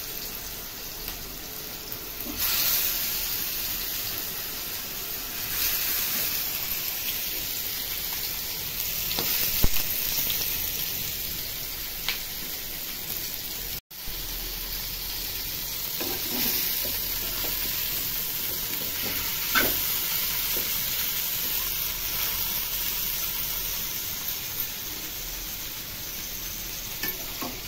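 Marinated chicken leg pieces sizzling steadily as they fry in hot oil in a pan, with a few sharp knocks now and then. The sound drops out for an instant about halfway through.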